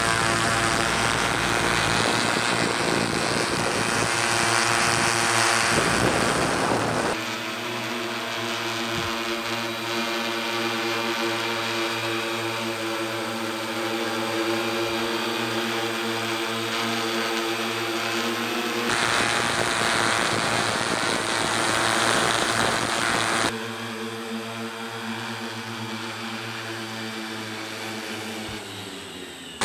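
Tarot T960 hexacopter's six electric motors and propellers humming steadily in flight, a multi-tone drone hum. Near the end the pitch falls as the motors slow down.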